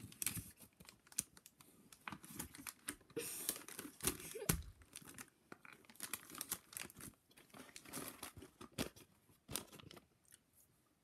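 Foil and paper wrapper of a chocolate bar crinkling and tearing as it is unwrapped, a long run of sharp crackles that dies away near the end.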